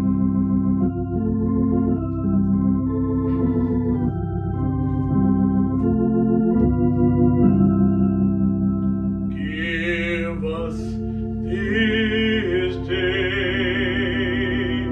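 Two-manual console organ playing slow sustained chords over a steady bass. From about nine seconds in, a higher wavering line with a pulsing vibrato joins the chords.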